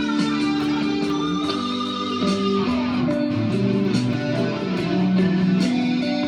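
Guitar music: held, ringing notes and chords that change every second or so.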